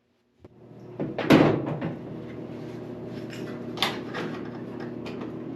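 LG dryer starting up and running: sound builds about half a second in, a loud knock follows about a second in, then a steady motor hum with scattered clicks and knocks.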